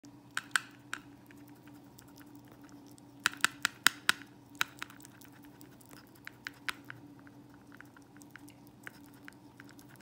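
A stoat eating from a plastic lid, making quick bursts of sharp clicks and smacks as it licks and chews at the plastic. The clicks are loudest in the first half, over a faint steady hum.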